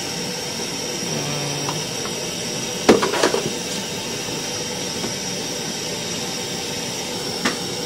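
Long wooden paddle stirring thick tiger nut porridge in a large aluminium pot, knocking against the pot several times about three seconds in and once more near the end, over a steady hiss.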